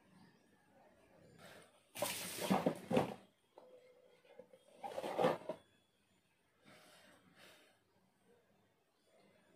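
Rustling and knocking as things are handled close to the microphone. There are two loud bursts, about two and five seconds in, and a fainter one around seven seconds.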